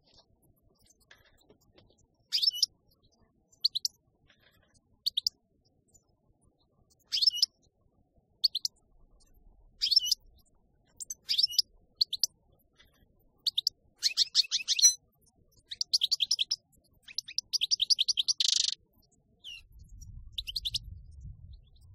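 European goldfinch singing: short bursts of high twittering at first, growing into longer rapid trills toward the end, the last closing on a buzzy note. A low rumble comes in near the end.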